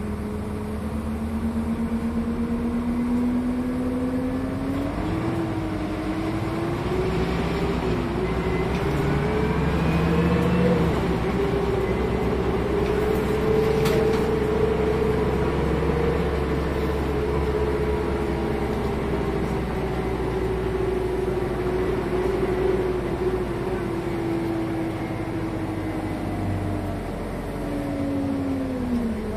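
Renault R312 city bus's diesel engine heard from inside the cabin: the engine note climbs as the bus accelerates, falls back once about eleven seconds in at a gear change, then holds and slowly sinks. It drops away sharply near the end as the bus slows.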